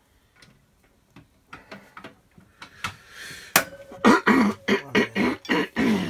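A quiet stretch of small plastic clicks and a sharp click about three and a half seconds in as a caravan fridge shelf is clipped into place, followed by a man's voice making short wordless vocal sounds.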